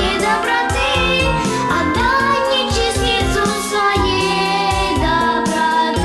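A young girl singing into a handheld microphone over an instrumental backing with a steady beat.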